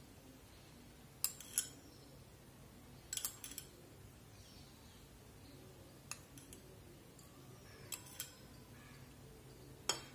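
Steel spoon clinking against glass bowls, about eight light taps, several in quick pairs, as water is spooned into flour to mix a slurry.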